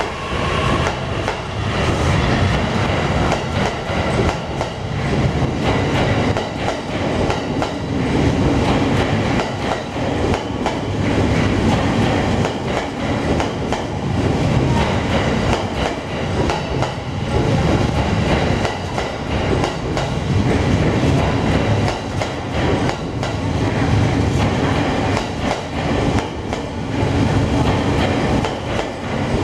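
A 15-car JR East E233 and E231 series electric train departing, its cars moving past with wheels clattering over the rail joints, the clatter swelling and easing every couple of seconds as each bogie goes by.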